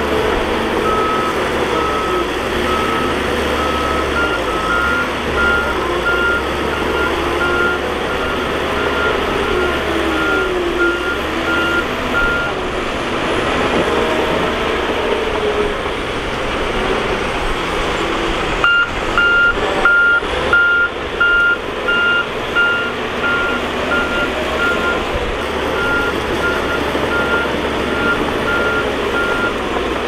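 Heavy crawler bulldozer's diesel engine running steadily while its reversing alarm beeps over and over as it backs up. The beeping pauses for several seconds midway, then comes back louder.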